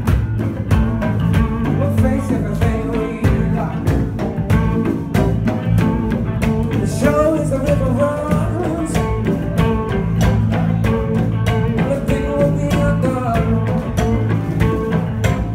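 Live band playing an improvised jam: electric guitar over a steady bass line and drums.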